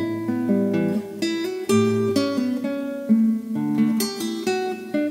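Background music on acoustic guitar: plucked and strummed chords over a bass line, the notes changing every half second or so.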